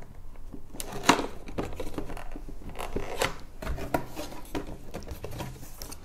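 A cardboard box being opened by hand: its tucked-in flaps pulled loose and lifted, making a string of short scrapes, taps and rustles of card, two or three of them sharper than the rest.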